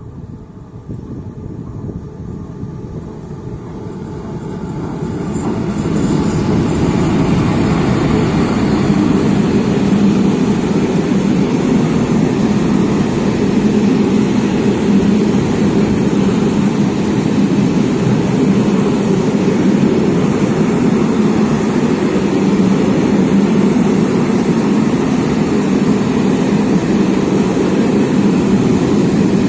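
Freight train hauled by the twin-unit ZSSK Cargo class 131 electric locomotive, with Eas open wagons, approaching and passing. It grows louder over the first six seconds or so, then holds a steady, loud rolling rumble of wheels on rails.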